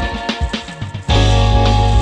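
Instrumental background music with drums; it grows louder about a second in as a deep sustained bass comes in.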